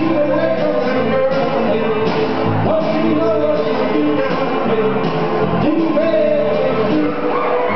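Men singing into microphones over amplified backing music, the sung notes held and sliding over a steady accompaniment.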